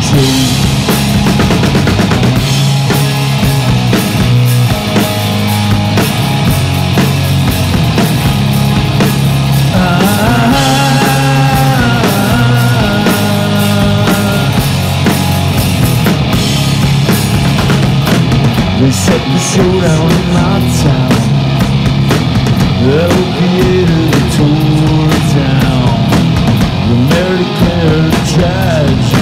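A two-piece rock band playing live and loud: a drum kit with crashing cymbals and a distorted electric guitar, continuous throughout.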